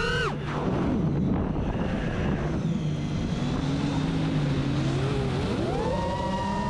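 FPV drone's electric motors whining. Their pitch drops steeply at the start as the throttle is cut, stays low and wavering, then climbs back up to a high whine near the end as the throttle is opened again.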